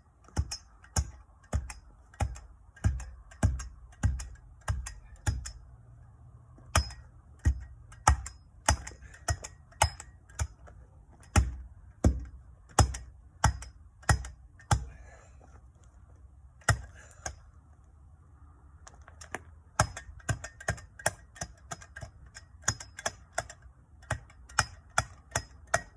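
Hand tool pounding cold-patch asphalt into a pothole, repeated sharp strikes at about two a second, with a short break a little past halfway.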